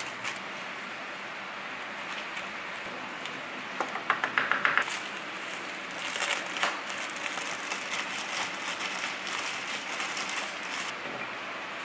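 Thin plastic bag crinkling and rustling as raw potato sticks are shaken in it to coat them in powder. There is a brief burst of fast shaking about four seconds in, then denser crinkling as the bag is handled and the coated sticks are taken out.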